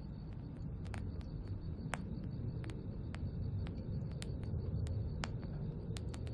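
Steady ambient background: a low rumble with a faint, even high hiss, broken by scattered sharp ticks at irregular intervals, about two or three a second.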